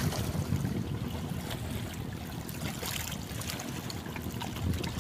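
Small waves lapping and splashing close by, over a steady low rumble.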